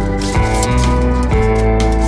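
Background music: a plucked guitar melody over a steady bass line.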